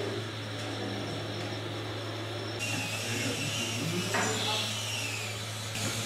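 Small electric motors and drives of radio-controlled model construction machines running with a buzzing whine. After about two and a half seconds a higher whine rises and falls as the model works, over a steady low hum.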